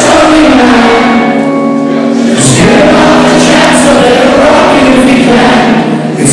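Rock band playing live, recorded from the audience: electric guitar and a lead vocal, with many voices in the crowd singing along.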